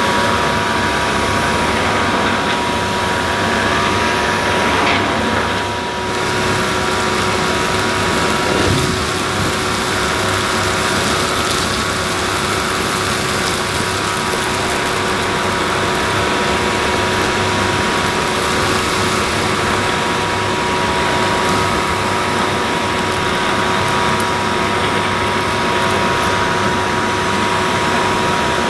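Numatic Henry Hound HHR 200 canister vacuum running steadily with its Turbo Electric power head, the motor's steady whine and suction rush continuing as the powered brush sweeps up clumps of debris from a rug.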